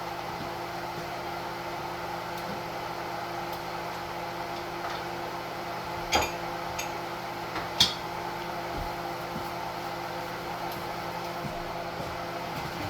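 Steady hum of a running kitchen appliance or fan, with two sharp clicks or knocks about a second and a half apart near the middle.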